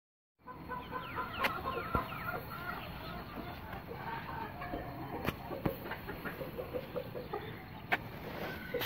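Aseel chickens clucking: many short clucks repeated throughout, with a few sharp clicks scattered among them.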